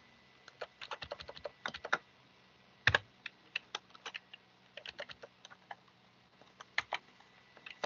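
Typing on a computer keyboard: irregular runs of keystrokes, with one louder key press about three seconds in.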